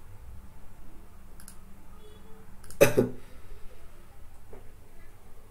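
A few faint clicks over quiet room tone, with one short, louder noise a little under three seconds in.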